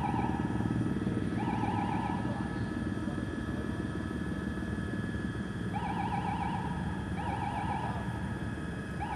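Steady low rumble of a helicopter heard from on board. Over it, a warbling electronic tone sounds for about a second at a time, repeating several times.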